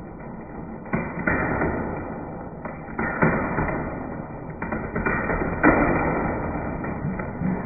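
A screwdriver striking and breaking a fan's brittle plastic blades: a run of sharp knocks, about seven, each followed by a short clatter of plastic.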